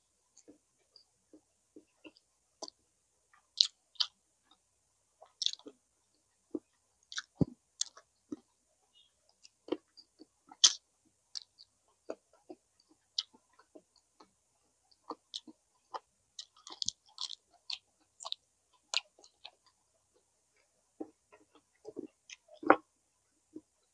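Close-miked eating sounds: a person chewing and smacking, heard as irregular short clicks and smacks, some much louder than others.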